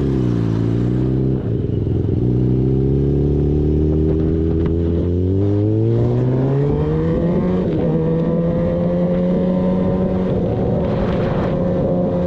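Kawasaki ZX-10R inline-four engine running under way: the revs dip at the start, then climb smoothly for several seconds and level off at a steady pitch.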